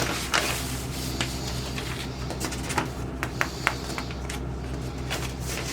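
Paperwork and a plastic sleeve being handled: scattered light crackles and ticks over a steady low hum.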